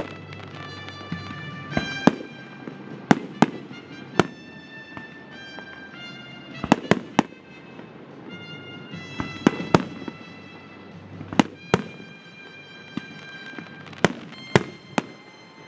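Aerial firework shells bursting in sharp bangs at irregular intervals, often two or three in quick succession, with music of held notes playing underneath.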